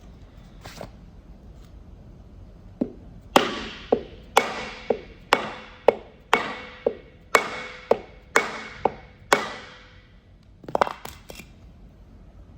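Repeated blows on a block of 4x4 wood, driving a new wheel seal into the hub, about two a second, loud and softer by turns, each ringing out briefly. A short quick cluster of lighter knocks follows near the end.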